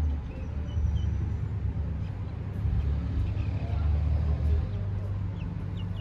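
A steady low rumble, with faint short high chirps now and then.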